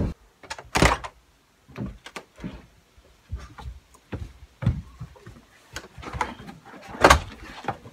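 Scattered knocks, thumps and shuffling as children hurry about and pull on tall riding boots, with two louder sharp knocks, one about a second in and one near the end.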